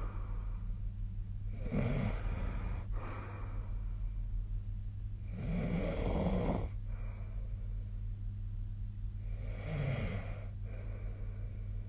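A sleeping person snoring, three snores each lasting about a second, spaced about four seconds apart, with a steady low hum underneath.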